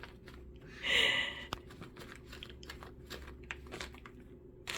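Chicken pecking at and eating food: quick, irregular beak clicks and crunches, with one short, louder noisy burst about a second in.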